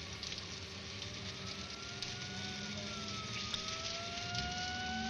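Steady hiss of water spraying onto a wet road, with a car's engine note gliding slowly and rising over the second half as it comes closer.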